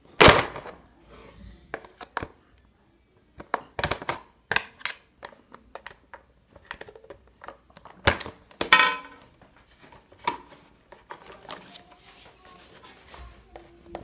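Screwdriver working at the plastic latches of an Arno Silence Force fan's housing: scattered clicks and knocks of tool and plastic, with a loud knock just after the start and a louder, longer scrape about eight and a half seconds in.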